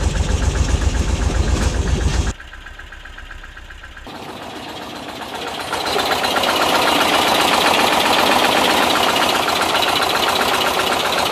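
Air-cooled 2.0-litre Type 4 flat-four of a 1979 VW bus idling with an even low beat at its first start after a rebuild. About two seconds in, the sound cuts to a different recording of the engine running rough on only three of its four cylinders, because the #3 plug wire is disconnected; it grows louder toward the end.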